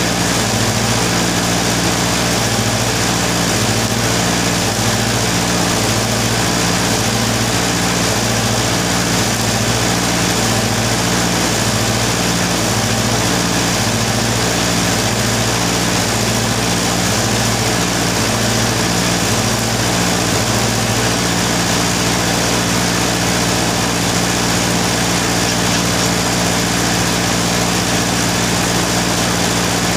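Arc welding set humming steadily under an even hiss. Its low hum pulses unevenly for about the first twenty seconds, then settles into a steady drone.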